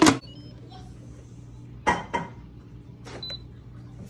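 Knocks and clicks as an Instant Pot electric pressure cooker is handled and its control panel set, the loudest at the start and about two seconds in. A short electronic beep sounds about three seconds in, over a steady low hum.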